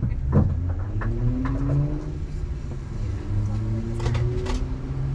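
Dodge Charger's V8 engine running, its pitch rising gradually as it picks up revs, with a few sharp clicks about four seconds in.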